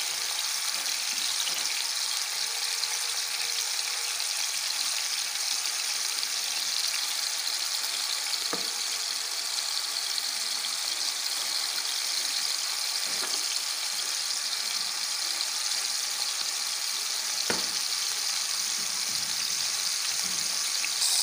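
Masala-coated fish pieces shallow-frying in a little oil on a tawa: a steady sizzle, with three faint ticks about eight, thirteen and seventeen seconds in.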